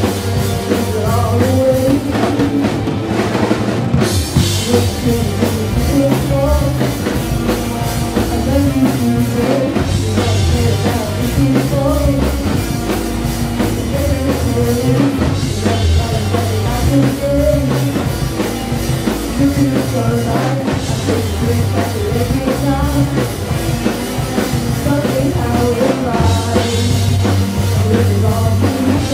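Rock music with drums and guitar, with singing in places.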